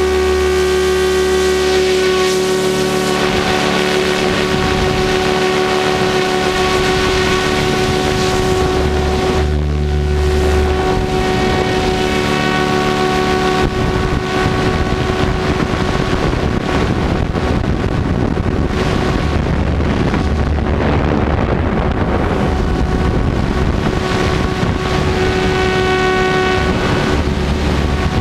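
Electric RC helicopter in flight, heard from its tail boom: a steady whine from the motor, gears and tail rotor over the rush of the rotor wash and wind on the microphone. The whine's tones shift as the load changes.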